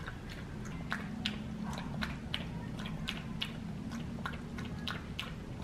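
Small dog lapping water from a stainless steel bowl, a steady run of wet laps about three a second.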